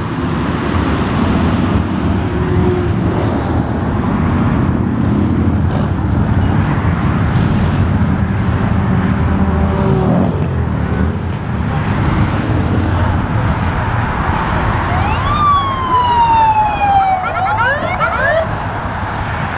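Steady highway traffic noise: tyres and engines of cars and motorcycles passing below. Near the end a siren sounds, with one long falling wail followed by a few quick rising whoops.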